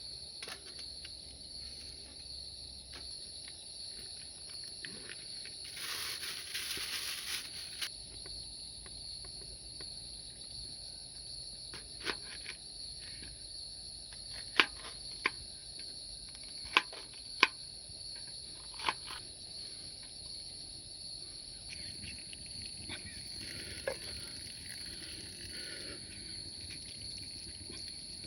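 Steady high-pitched chorus of insects shrilling continuously, with a brief rustling burst about six seconds in and a handful of sharp clicks near the middle.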